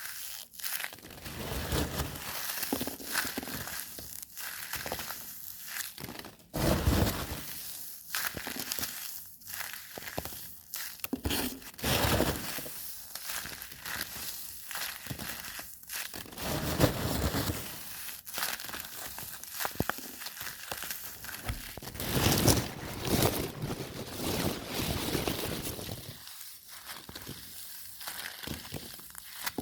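Crushing and crinkling sounds in irregular bursts, louder swells coming and going every few seconds.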